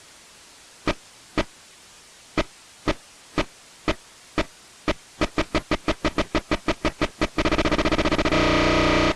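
Fan-made emergency alert alarm sound: sharp, distorted blips in pairs about half a second apart. They speed up to a rapid string of about six a second around five seconds in, then merge into a continuous harsh buzzing tone that cuts off suddenly at the end. Faint static hiss runs underneath.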